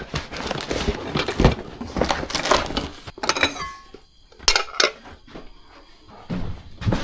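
Glass dishes clinking and knocking together while the cardboard box and its packing rustle as kitchenware is lifted out, with a few sharp ringing clinks a little past halfway.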